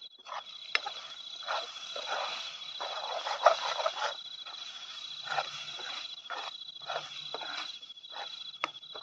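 Metal ladle stirring and scraping a pan of soybean-and-potato curry on a portable gas stove, in irregular strokes with a few sharp clinks. Night insects chirp steadily and high-pitched throughout.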